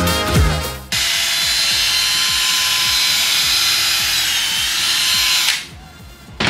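Music with a beat for about a second, then a power tool starts abruptly and runs steadily at a high pitch for about four and a half seconds before cutting off suddenly.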